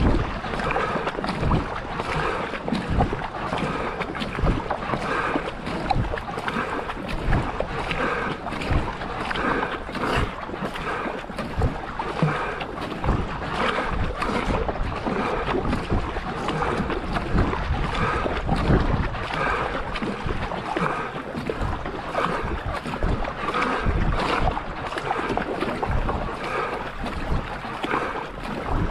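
Paddle strokes of a racing canoe, splashing into the water in a steady rhythm of roughly one a second, over the constant rush of water along the hull and wind on the microphone.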